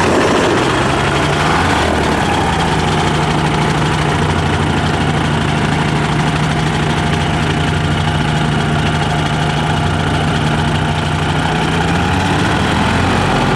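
Titan Tornado ultralight's engine and propeller, starting up and running steadily at idle. The pitch settles within the first couple of seconds and then stays unchanged.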